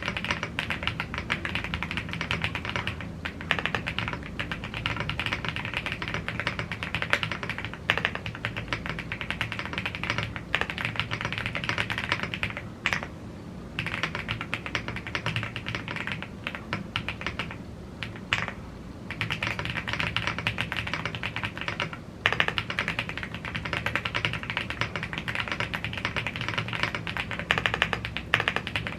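Continuous fast typing on a YUNZII AL75 gasket-mounted aluminium mechanical keyboard with Blue Grey tactile switches and double-shot PBT Cherry-profile keycaps, a dense run of key clacks broken by two short pauses a little before and after the middle.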